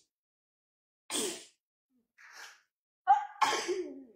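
A woman sneezing several times: once about a second in, faintly near the middle, then a louder double sneeze near the end.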